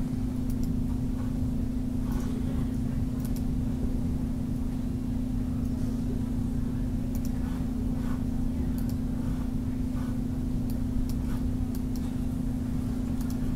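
Steady low electrical hum with one constant tone, under a scattering of faint clicks from a computer mouse.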